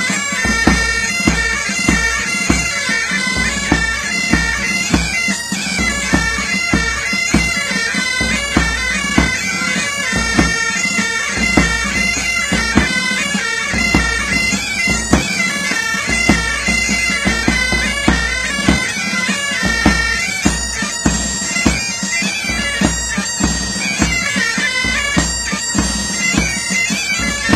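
Pipe band playing a march: bagpipes sound a melody over their steady drone, with a regular drumbeat underneath.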